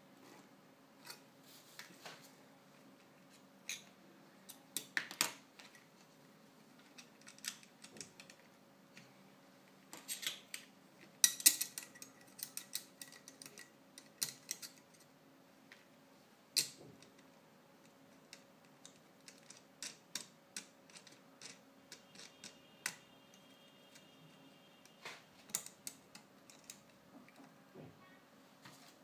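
Scattered metallic clicks, taps and clinks as a knife sharpener's stainless-steel blade clamp and a kitchen knife blade are handled and fitted together. The loudest cluster of clinks comes about eleven seconds in.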